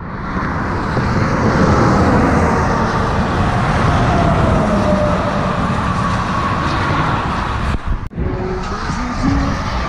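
Steady road noise of a car driving on a highway, tyres and engine, with a faint falling tone partway through. The sound briefly drops out about eight seconds in.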